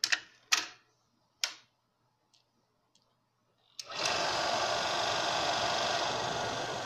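A few sharp clicks as the control switch of an Eiki Super Slot-Load II 16mm film projector is turned. About four seconds in, the projector's motor starts suddenly and the machine runs with a steady mechanical noise.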